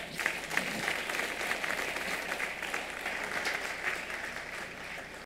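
Church congregation applauding: a dense patter of many hands clapping that slowly dies down.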